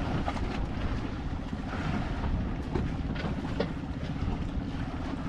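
Boat engine running steadily, with wind and water noise over it.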